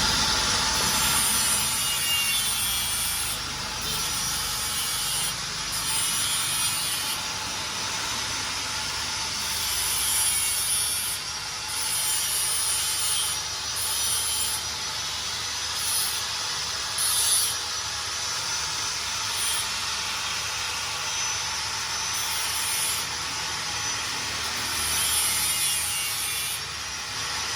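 A machine or power tool running with a steady rasping, sawing-like noise. A very high hiss cuts in and out every second or two.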